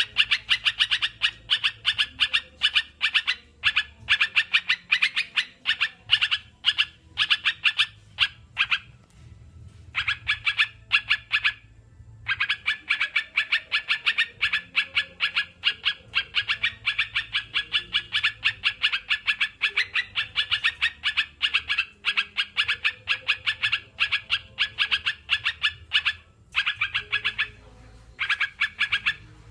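Yellow-vented bulbul (crucukan) chattering: long strings of sharp, rapidly repeated notes, about ten a second, broken by a few short pauses.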